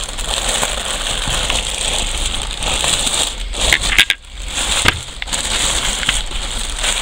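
Plastic packaging bags crinkling and rustling as a liquid CPU cooler's radiator is pulled out of its box, with a few sharp clicks. The crinkling breaks off briefly about four seconds in, then starts again.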